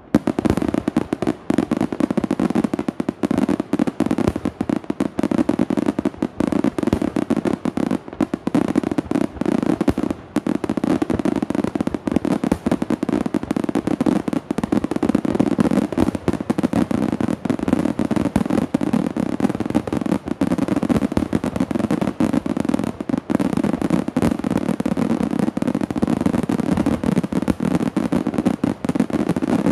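Aerial fireworks display: a dense, unbroken barrage of shell bursts, many bangs a second running into one another, with crackle.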